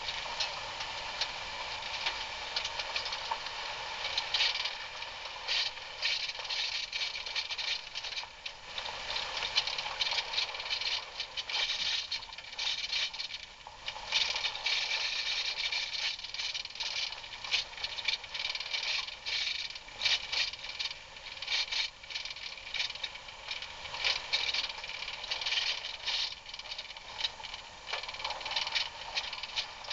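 Off-road vehicle travelling down a rough dirt trail: steady running noise with constant irregular rattling and clattering as it jolts over the bumps.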